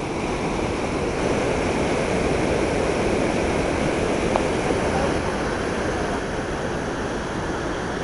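Turbulent whitewater rushing and churning in a steady, loud wash of water noise.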